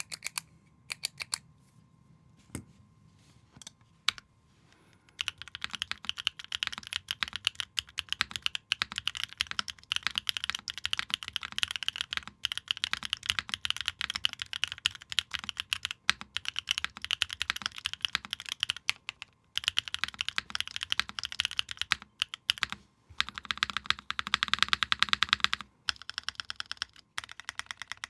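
Typing on a Luminkey80 mechanical keyboard with stock Banshee switches on an aluminium plate and GMK ABS keycaps. A few single keystrokes come first, then about five seconds in a fast, continuous stream of key clicks sets in, broken by a few brief pauses.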